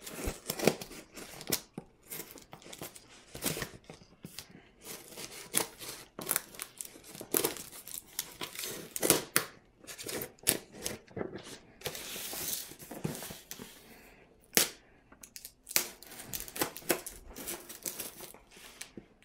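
Hands picking at, peeling and tearing packing tape on a cardboard shipping box: irregular scratching, crinkling and ripping sounds, with one longer stretch of tearing a little past halfway.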